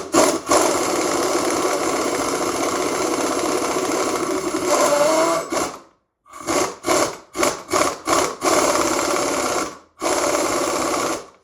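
Power tool turning the centre bolt of a harmonic balancer puller, pulling the balancer off a dragster engine's crankshaft. It runs steadily for about six seconds, then is pulsed in several short blips, then runs again briefly near the end.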